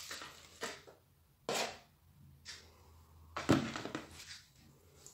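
A metal spoon scraping and knocking against bowls as whipped egg-white meringue is scooped from one bowl into another: a handful of short scrapes, the loudest about three and a half seconds in.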